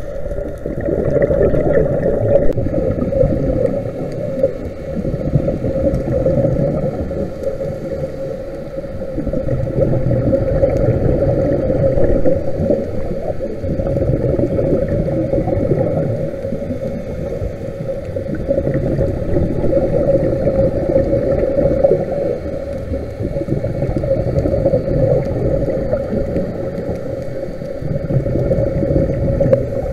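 Muffled underwater noise picked up by a camera underwater: a steady low rumble with a constant hum, swelling and easing every few seconds.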